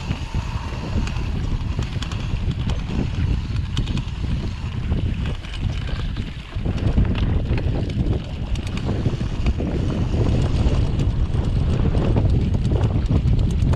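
Wind buffeting an action camera's microphone during a mountain-bike ride: a loud, steady low rumble with scattered small clicks and rattles from the bike on a rough track, briefly easing about halfway through.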